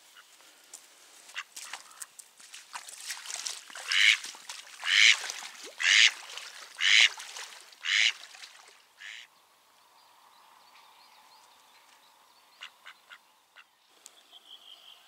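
Hen mallard-type live decoy duck quacking: five loud quacks about a second apart, then a fainter one. This is the decoy hen calling to draw in drakes.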